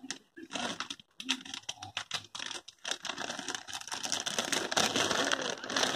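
Plastic courier mailer bag rustling and crinkling as it is handled, a run of quick irregular crackles that grows denser and louder about four seconds in.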